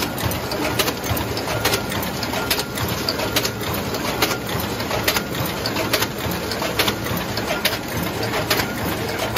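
B400 paper bag making machine running, feeding and forming 80gsm brown kraft paper through its rollers: a steady mechanical din with a sharp click repeating evenly a little more than once a second.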